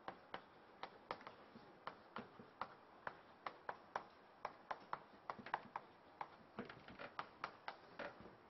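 Chalk tapping and scratching on a chalkboard as equations are written: a quick, uneven string of short, sharp clicks, several a second.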